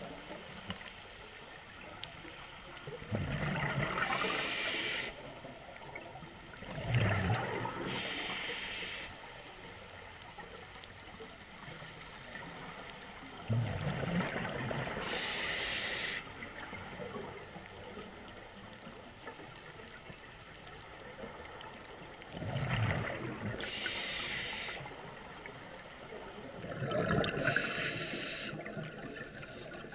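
Scuba regulator breathing heard underwater: about five breaths several seconds apart, each a hiss of air through the regulator with a gurgling rush of exhaled bubbles.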